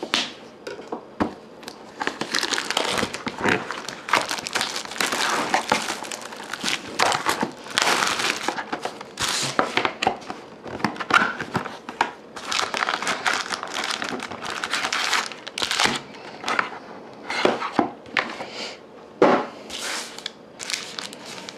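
Plastic shrink wrap crinkling and tearing as it is cut with a knife and pulled off a cardboard trading-card box, then the card packs rustling as they are taken out and handled, in irregular bursts throughout.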